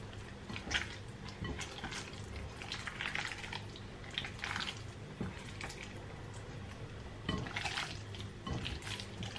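Faint, irregular wet handling and rubbing noises from hands working raw seasoned beef and the counter beside a glass bowl, over a steady low hum.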